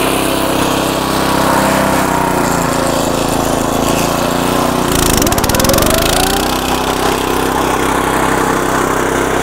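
A walk-behind tractor's single-cylinder petrol engine running at raised revs, with a rotary mower attachment fitted. About five seconds in, the engine note dips sharply with a rush of hiss, then climbs back and runs steady again.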